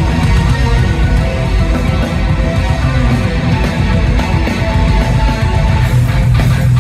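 Progressive metal band playing live in an arena: electric guitar, bass guitar, drums and keyboards over a heavy, steady bass line, heard from the crowd with the hall's echo.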